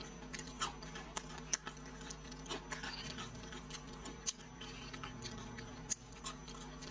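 Scattered sharp clicks and crunches, about one or two a second, from crispy fried silkworm pupae being picked out of a bowl with the fingers and chewed.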